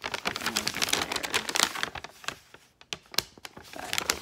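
Plastic packaging being handled: crinkling and rustling with quick clicks and taps, busiest in the first two seconds, then a few separate clicks.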